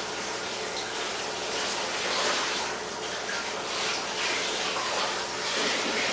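Kitchen tap running, water splashing over a whole raw chicken being rinsed in the sink, the splashing rising and falling in level.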